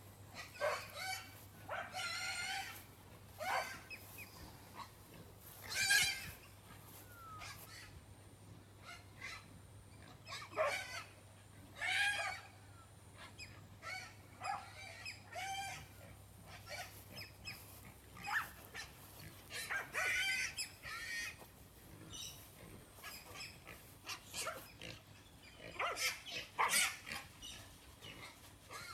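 Farm animals calling: a string of short, high pitched cries and squeals, one after another, with the loudest about six seconds in and again near the end.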